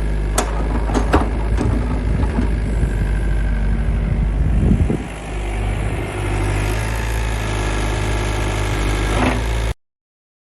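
Diesel engine of a Volvo ECR88 compact excavator running steadily, with a few sharp knocks in the first two seconds and a brief dip about five seconds in; the sound cuts off suddenly near the end.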